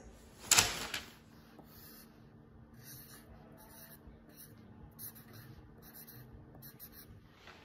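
A pen scratches across a sheet of paper in short, irregular strokes. It follows a brief, loud handling noise of the paper about half a second in.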